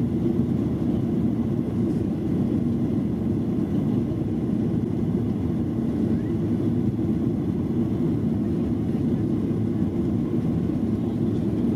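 Steady low rumble of a Boeing 737-700 in flight, heard inside the cabin: engine and airflow noise from its CFM56-7B engines, even and unchanging.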